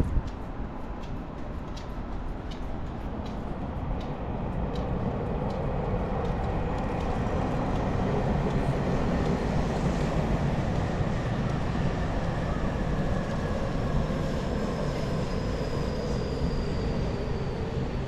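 Tokyu Toyoko Line train running past, a steady rumble that builds after a few seconds, with a thin high whine that falls slightly near the end. Footsteps about twice a second in the first few seconds.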